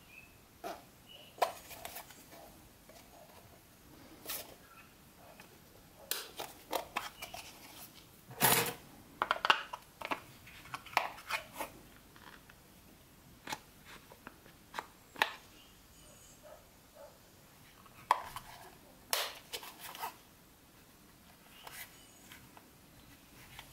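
Irregular clicks and light clatters from a battery storage box being handled, in clusters with short pauses between.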